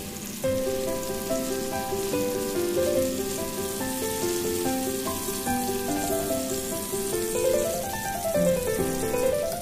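Background piano music with a run of single notes, over the steady sizzle of salmon pieces frying in olive oil and butter.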